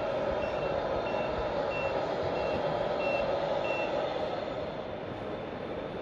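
Reversing beeper of a 1/14-scale RC model truck: a short high electronic beep repeated about one and a half times a second, stopping about four seconds in, over steady background noise.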